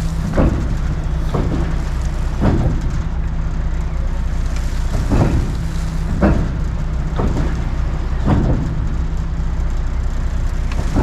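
Walking-floor trailer unloading silage: a truck engine runs steadily while the floor slats clunk about every second or two as they shunt back and forth.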